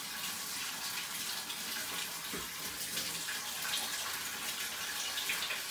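Water running steadily from a tap, an even, unbroken rush.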